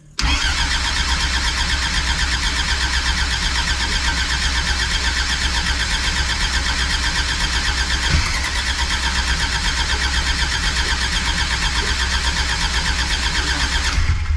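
Starter motor cranking a classic Mini's freshly built 1330 A-series engine on choke, a steady pulsing run of about fourteen seconds with one brief louder knock about eight seconds in. It stops abruptly, the engine not running on: a first start that has not yet caught.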